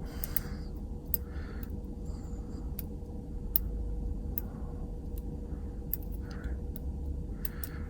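Small, irregular metallic ticks of a hook pick working the pins inside a Yale Y90S 45 mm padlock, over a low steady hum.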